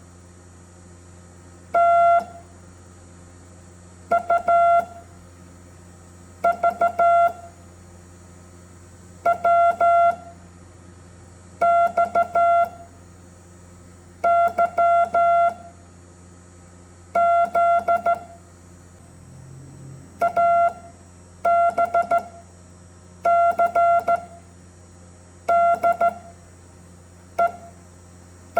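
Morse code tones: a single-pitched beep keyed in short and long elements, sounding one letter of the alphabet at a time. About a dozen letters go by, one every two to three seconds, over a steady low hum.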